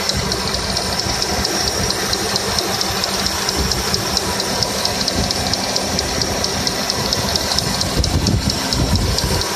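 2002 Toyota Corolla's engine running with a fast, even knocking tick over its steady running noise, a knock that came on suddenly the same day. A heavier low rumble swells briefly near the end.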